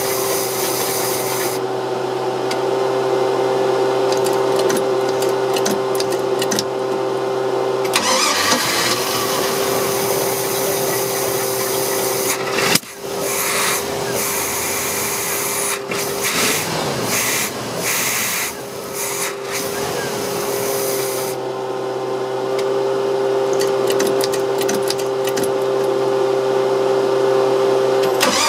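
OMC 5.0 L V8 inboard/outdrive boat engine running at a steady speed. About halfway through the sound drops out sharply for a moment, and knocks and rattles follow for a few seconds.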